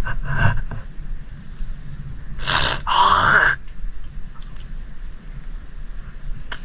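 A man in river water blowing out and gasping hard twice in quick succession, about two and a half seconds in, as after coming up from ducking under the surface. Low wind rumble on the microphone underneath.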